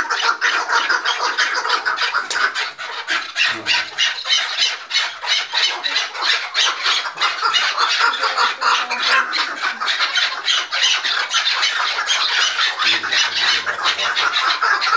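Several chukar partridges calling together in an agitated squabble: a fast, continuous chatter of harsh calls that eases slightly a few seconds in.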